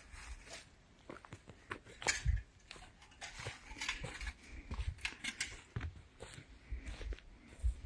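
Irregular footsteps on dry forest ground, with short crackles and low thumps.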